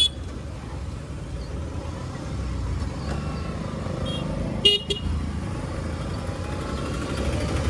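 Motorcycle engine running under road rumble while riding slowly through town traffic. Short horn toots sound right at the start and again, louder, a little under five seconds in.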